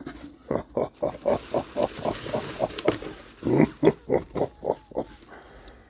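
Rapid rhythmic vocal sounds, about five pulses a second, in two runs, the second louder, with a faint rustle of packaging as a new carburettor is lifted from its box.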